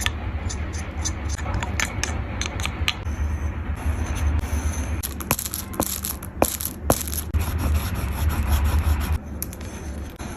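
Oil pastels rubbing and scraping across paper in short strokes, with many small sharp taps and clicks throughout, over a steady low hum.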